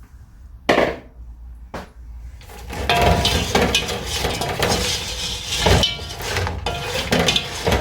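Chicken lollipops being tossed in a pan of thick sauce with a utensil: two sharp knocks in the first two seconds, then steady clattering and scraping of the utensil against the pan.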